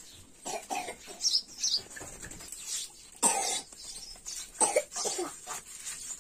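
Short coughs, the loudest about three seconds in and another a second and a half later, over the soft scrape of red ants being ground by hand on a round grinding stone.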